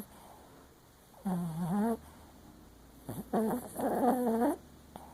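Sleeping Papillon Chihuahua mix snoring and whimpering while it dreams: a wavering, pitched whine-snore about a second in, then a short one and two longer ones close together around three to four and a half seconds in.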